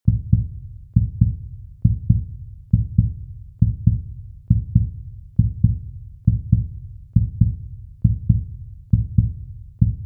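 Heartbeat sound effect: pairs of low thumps, lub-dub, repeating steadily about once every 0.9 seconds, as in a cinematic title intro.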